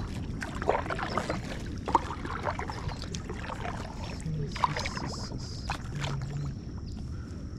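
Water splashing and lapping around an inflatable kayak, with scattered light knocks.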